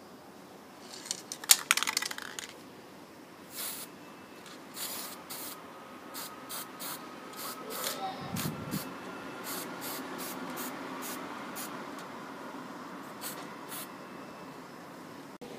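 An aerosol can of gold spray paint hissing in a long series of short bursts. A loud clatter about a second in comes before the spraying.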